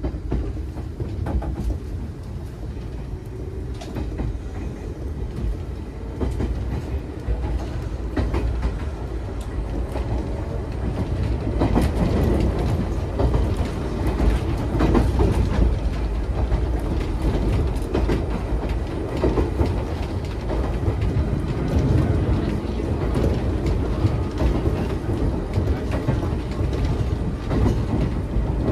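Running sound inside a Nagano Electric Railway 3500 series (ex-Teito Rapid Transit Authority 3000 series) electric commuter car under way: a steady low rumble of wheels on rail with scattered rail-joint clicks. It grows louder about eleven seconds in.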